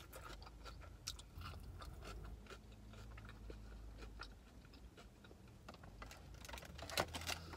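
Close-up chewing of a bone-in chicken wing: faint wet mouth sounds with scattered small crunches and clicks, and a sharper click near the end.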